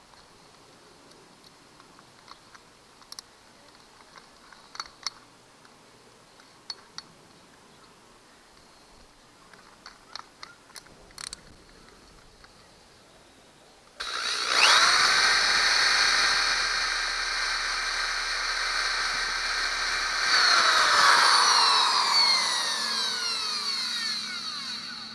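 Light clicks of a drill chuck being hand-tightened on a quarter-inch bit. About fourteen seconds in, the electric drill starts with a steady high whine. About twenty seconds in it gets louder and its pitch falls as it winds down, while it bores a hole in the boat's transom.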